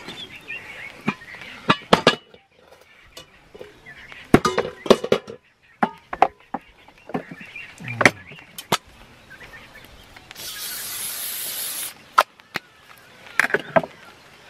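An aerosol spray can hissing in one steady blast of about a second and a half, most likely cooking oil going into a cast-iron Dutch oven, among scattered knocks and clatter of a knife, pots and utensils on a wooden camp kitchen box.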